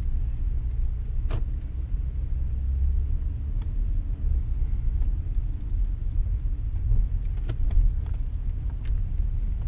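Steady low rumble inside a minivan's cabin, engine and road noise, with a few light clicks.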